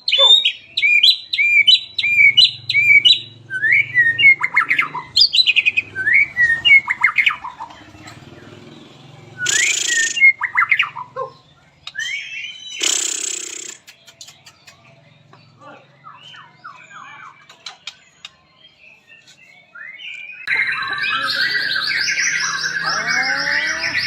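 White-rumped shama (murai batu) singing: quick runs of repeated whistled notes and pitch glides, with two short harsh noisy notes about ten and thirteen seconds in. After a quieter stretch, the song turns into a loud, unbroken, dense chattering run from about twenty seconds in.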